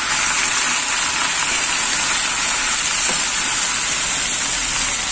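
Marinated chicken breast pieces sizzling steadily in oil in a non-stick frying pan.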